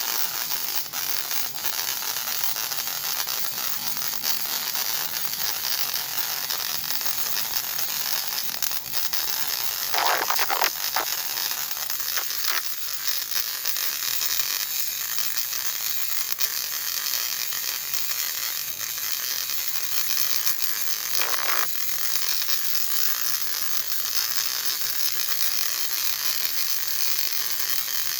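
MIG (gas metal arc) welding arc crackling and sizzling steadily as a bead is run, with brief louder spurts about ten and twenty-one seconds in.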